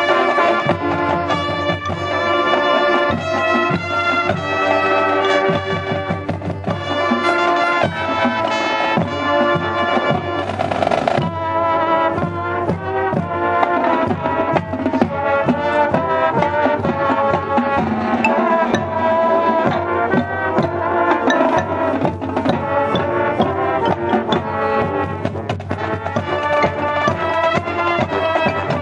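High school marching band playing its field show live: massed brass over drumline and front-ensemble percussion, heard from the stadium stands. A brief crash of noise cuts through about ten seconds in.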